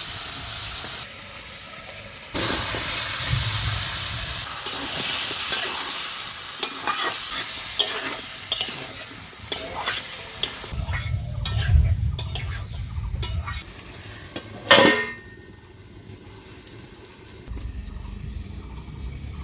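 Onion and spice masala sizzling in hot oil in a kadai while a metal spatula stirs it, with repeated scrapes and clinks against the pan. The sizzle rises about two seconds in, and after one loud ringing scrape near the fifteen-second mark it becomes quieter.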